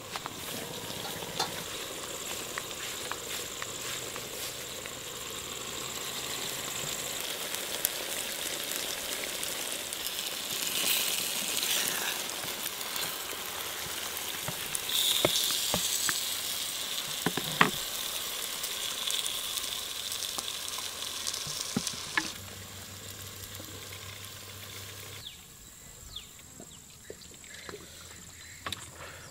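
Cooking sounds from a clay pot of boiled chicken: a steady sizzling hiss, with a few sharp clinks of a metal ladle against the pot about halfway through, growing quieter near the end.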